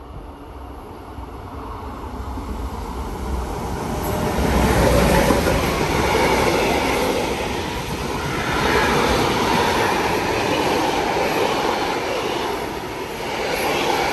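Freight train of container wagons passing through the station at speed. The noise builds over the first few seconds as it approaches, then holds as a steady rumble of wagons and wheels on the rails.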